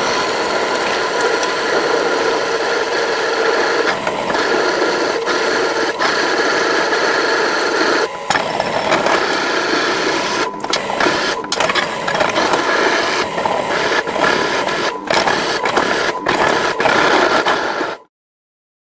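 Benchtop drill press running and cutting as it bores a hole: a loud, steady whir with brief dips every few seconds. It cuts off suddenly near the end.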